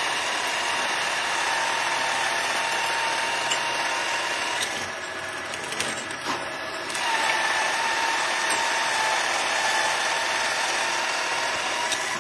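Drill press running, its twist bit cutting through a stack of steel sprocket blanks with a steady whine. The whine drops away for about two seconds midway, then resumes.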